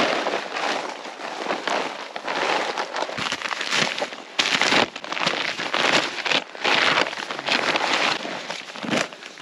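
Rustling and crinkling of a plastic tarp and a nylon tent bag being handled close by, in irregular bursts as the tent is unpacked.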